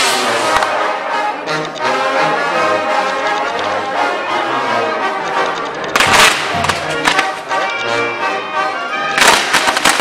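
Brass band music playing over burning fireworks on a castillo firework tower, with loud crackling bursts about six seconds in and again near the end.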